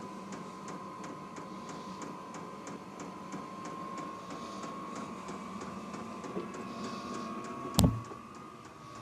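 Vevor Chinese diesel heater running: a steady whine from its blower, slowly rising in pitch, over a low hum, with the fuel dosing pump ticking about three times a second. One sharp click near the end.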